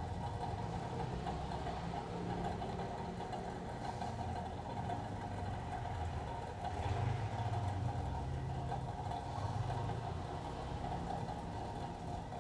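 Steady low mechanical hum, swelling a little about seven seconds in.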